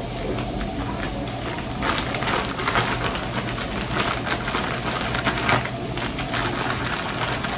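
Soft bread dough being mixed in a bowl as flour is worked in: a continuous run of irregular scraping and sticky clicking over a steady low hum.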